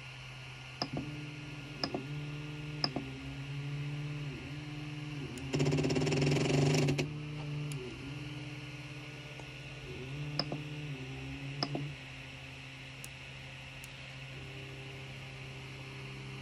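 Creality Ender 3 Pro's stepper motors driving the print head and bed through a series of moves: a humming whine that rises in pitch as each move speeds up, holds, and falls as it slows. There is a louder, noisier stretch about halfway through and a few sharp clicks.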